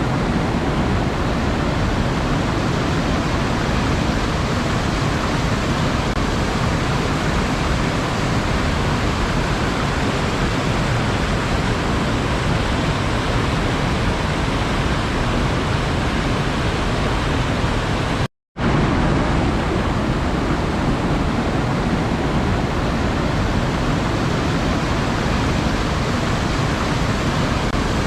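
Steady, even rushing of sea water, with no separate wave breaks standing out. About two-thirds of the way through it cuts out to silence for a fraction of a second, then resumes unchanged.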